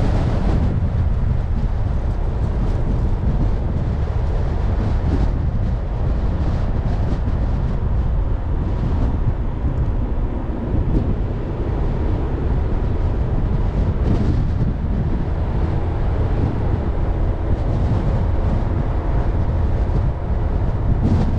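A car driving at steady speed: a continuous low road and tyre rumble with wind noise.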